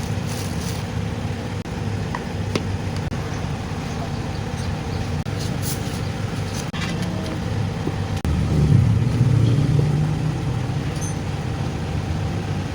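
Diesel engine running steadily, growing louder a little over eight seconds in.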